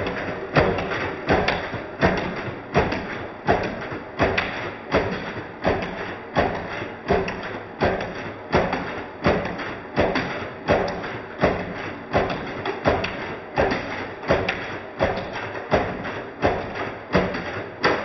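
Background music with a steady, percussive beat of sharp knocks, loud peaks coming a little faster than once a second.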